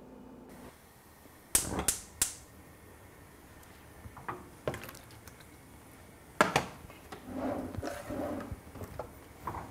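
Several sharp clicks and knocks of objects being handled: three quick ones near the start, a few lighter ones, and the loudest single knock a little past the middle, followed by softer shuffling.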